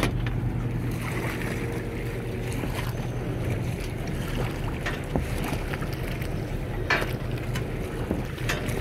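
Boat engine running steadily, with water washing against the hull and wind on the microphone. A few light knocks sound about five, seven and eight and a half seconds in.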